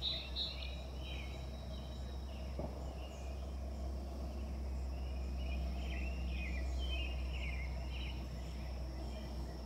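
Outdoor garden ambience: birds chirping in short scattered phrases over a steady high insect drone, with a constant low rumble of background noise.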